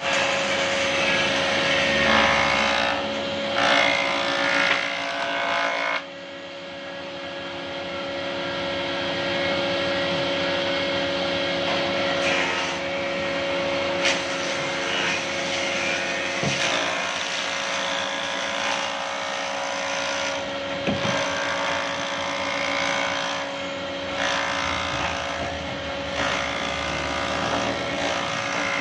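Electric jointer-planer running with a steady motor hum, its cutterhead shaving a wooden plank pushed across it by hand in repeated passes. The cutting noise swells and dips from pass to pass and drops off suddenly about six seconds in.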